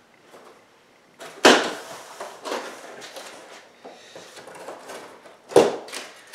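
Large cardboard TV box being handled at its top edge: scraping and rustling of cardboard, with two loud sharp sounds about a second and a half in and near the end.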